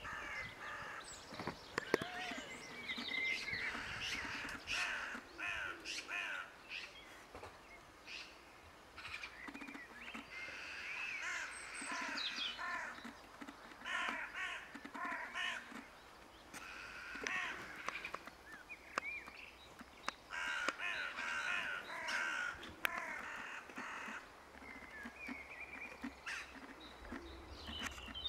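Crow-family birds calling throughout: harsh, repeated cawing and chattering calls in quick bursts, with a few sharp clicks among them.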